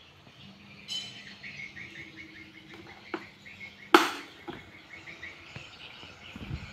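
Push-button switch on the base of a Sanex desk fan pressed with one sharp click about four seconds in, over a low steady hum. Small birds chirp repeatedly in the background.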